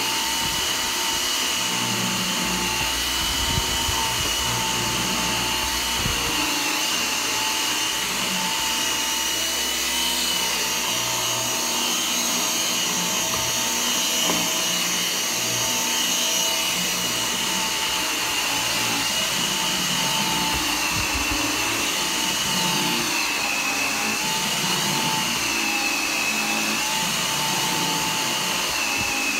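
G-Tech AirRam 2 cordless upright vacuum cleaner running steadily at full power, its motor giving a high whine that wavers slightly now and then, over a low uneven rumble.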